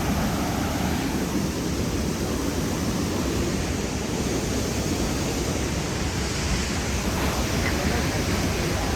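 Steady rushing roar of a large waterfall's falling water.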